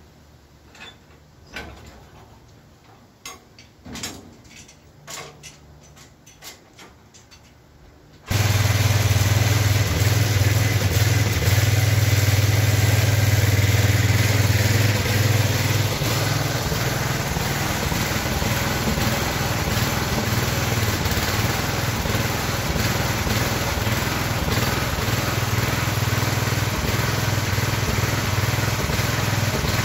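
A few faint clicks and knocks, then about eight seconds in an engine comes in suddenly and runs steadily with a strong low hum, easing slightly in level about halfway through.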